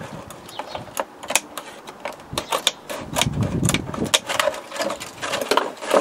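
Scissors cutting through the thin plastic wall of a milk bottle: a run of sharp, irregular snips and crunches, with the plastic bottle rustling as it is handled.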